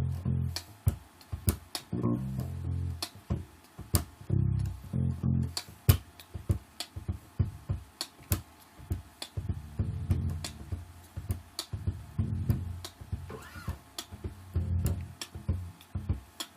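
Electric bass guitar played percussively: many sharp clicky hits on muted strings mixed with low notes on the root, F, in uneven rhythmic groups.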